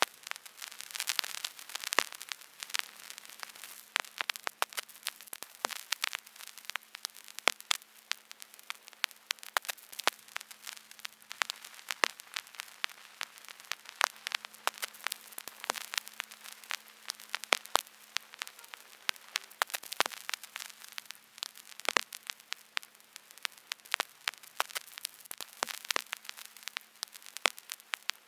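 Vinyl record surface noise: steady crackle and hiss, with louder pops recurring about every two seconds, over a faint steady hum.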